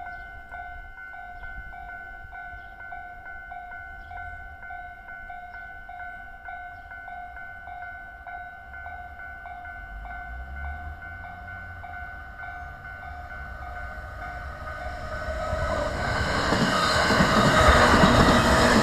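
Japanese level-crossing warning bell ringing steadily in a regular electronic ding-ding pattern. About fifteen seconds in, a JR E231-series electric train approaches, its rolling noise growing louder until it drowns out the bell as it passes over the crossing.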